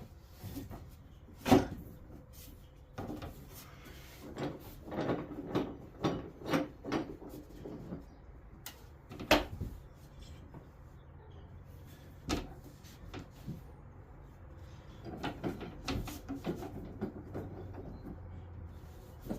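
Irregular knocks and clunks of wooden parts and tools being handled and set down at the workbench, some single and some in quick clusters, with a sharp knock about a second and a half in and another near the middle.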